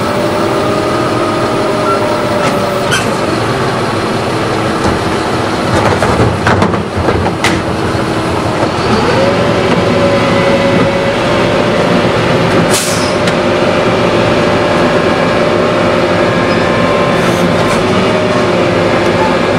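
Heil Retriever garbage truck running with a steady whine from its engine and hydraulics. Several clanks and knocks come around 3 s and 6–7 s in as the cart is tipped and set down. About 9 s in the whine rises in pitch and holds there as the hydraulics cycle, and a short hiss of air comes near 13 s.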